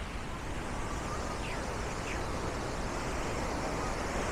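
Steady, even rush of a large waterfall, the Montmorency Falls, pouring down.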